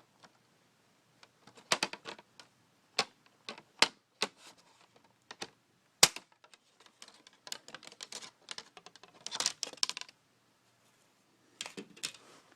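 Plastic laptop parts being handled and pried during a screen removal: irregular sharp clicks and taps, the loudest about six seconds in and a quick run of them near ten seconds.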